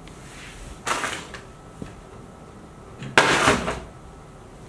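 Plastic water bottle being flipped and landing or falling over with a thud twice, about a second in and again, louder, just after three seconds.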